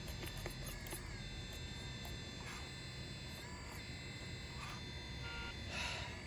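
Small electric drive motors of an RC skid steer running, giving a steady high whine whose pitch shifts briefly a few times as it manoeuvres.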